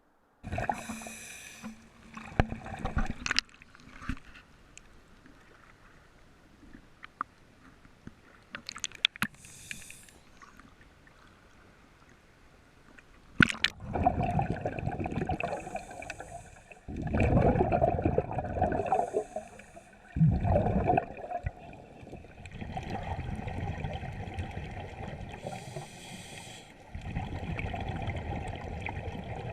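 Scuba diver breathing through a regulator underwater: hissing inhalations and bursts of gurgling exhaled bubbles. A quieter stretch with scattered faint clicks comes first; about halfway through the breaths turn loud and regular.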